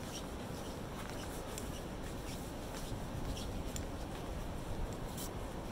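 Snowy city street ambience: a steady low rumble with faint, irregular light ticks scattered through it.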